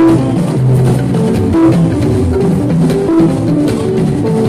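Fuji band music playing without vocals: drums and percussion beating steadily under a short repeating melodic riff and a bass line.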